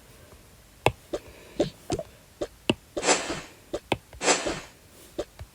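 Kitchen handling sounds while food is served: scattered light clicks and knocks of plates and utensils, with two short rustles about three and four seconds in.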